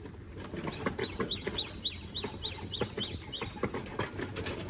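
A bird calling: a quick run of about ten short, high chirps, about four a second, with light clicking and rattling underneath.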